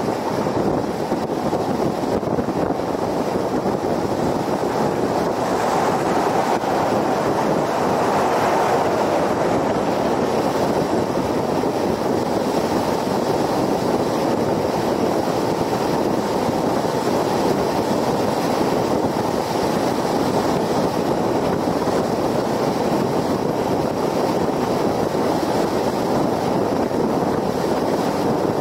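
Steady road noise of a car at highway speed: tyre noise on the pavement mixed with wind rush, swelling slightly about six to nine seconds in.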